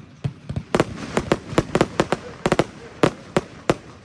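Röder 'Farbtastisch' F2 fireworks firing: a rapid, irregular string of sharp bangs and cracks as shots launch and burst. The last bang comes a little before the end and then dies away.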